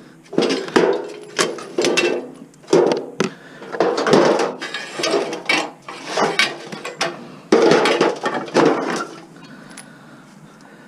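Scrap metal clanking and clattering as pieces are rummaged through and dropped, with a quick run of sharp knocks that stops about nine seconds in.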